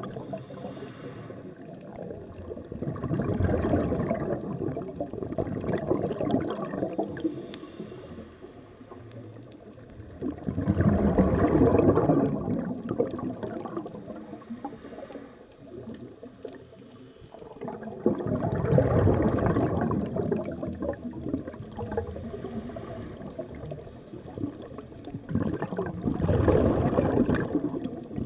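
A scuba diver's breath bubbling out through the regulator, heard underwater: four long bursts of bubbles, one every seven seconds or so.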